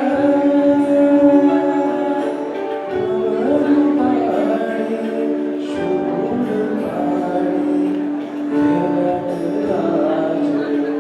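Music: a song with voices singing over held instrumental notes, running on without a break.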